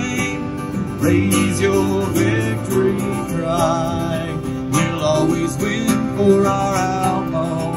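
Music with guitar playing, steady in level throughout.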